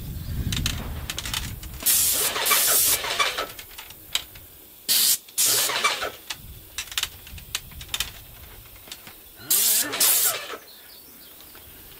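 Airless paint sprayer gun spraying in short loud hissing bursts, in pairs, three times, as the trigger is pulled on the last of the paint in the bucket. A low rumble comes in the first second or so.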